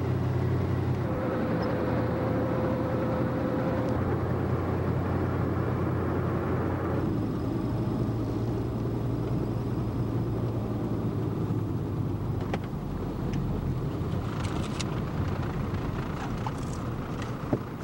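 Road noise inside a moving car: steady engine and tyre drone. The sound changes about seven seconds in, and a few light clicks and knocks come near the end as the car rolls into a toll booth lane.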